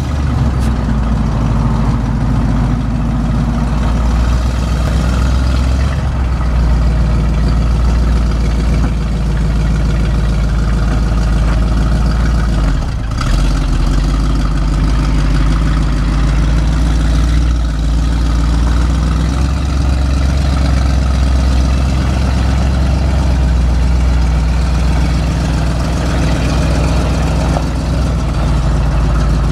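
Gasoline engine of a 1987 Chevrolet C70 dump truck running steadily at a slow driving pace as the truck pulls forward and turns, with a brief drop in level about thirteen seconds in.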